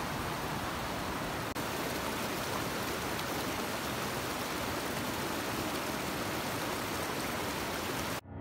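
Mountain stream rushing and splashing over boulders: a steady, even rush of water that cuts off just before the end.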